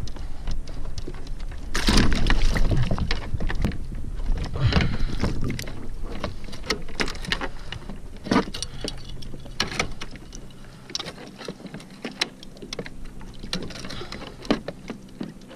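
A freshly landed king mackerel knocking and slapping against a plastic fishing kayak as it is held and unhooked: irregular knocks and clatters, loudest in a flurry about two seconds in, then sparser and quieter.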